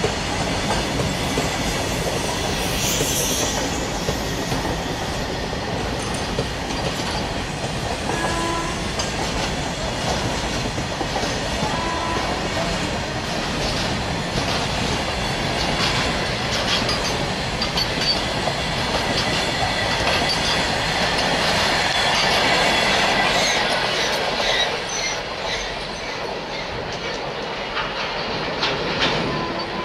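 A long freight train of covered boxcar wagons rolling past close by, steel wheels clicking over the rail joints, with short high wheel squeals now and then. The sound eases about 25 s in as the last wagon moves away.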